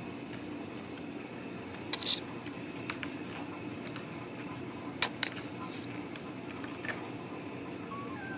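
Scattered sharp clicks and taps from Ragdoll kittens scrambling and playing on a tile floor and cardboard scratcher, the loudest about two seconds in and a pair about five seconds in, over a steady low hum.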